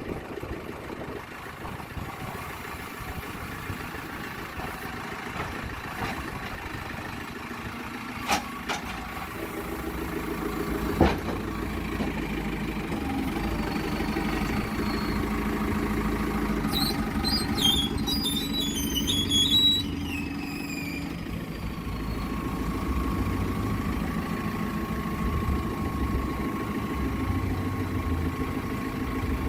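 Backhoe loader's diesel engine running steadily and growing louder about nine seconds in, with a couple of sharp knocks and, near the middle, a brief high warbling sound.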